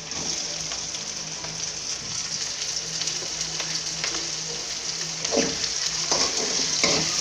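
Chopped onions and green chillies sizzling in hot oil in an aluminium kadai. The sizzle grows louder as diced tomato goes in, and a spatula knocks and scrapes against the pan near the end.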